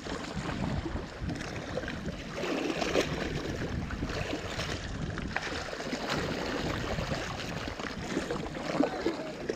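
Choppy seawater splashing and lapping close beside a sea kayak and against a floating pontoon, an irregular wet slosh.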